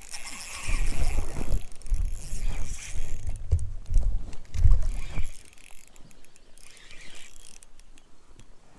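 Water sloshing and knocking against a float tube, with irregular low bumps and rumble that ease off about five seconds in.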